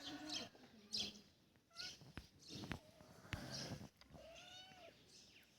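Cat mewing: several short pitched calls, with a longer call that rises and falls about four seconds in.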